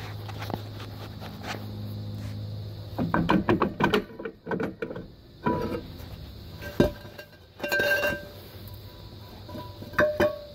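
A rusty rear brake drum from a Dodge Caravan being worked off its hub and set down: a run of metal knocks and scrapes, then several sharp clanks, each ringing briefly, the loudest about two-thirds of the way through. A steady low hum sounds under the first few seconds and then stops.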